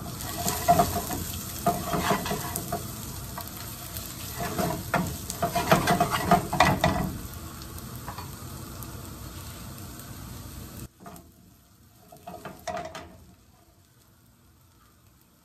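Onions, carrots and garlic sizzling in a hot skillet, stirred with a silicone spatula that scrapes against the pan. The sizzle cuts off suddenly about eleven seconds in, leaving only a few faint knocks.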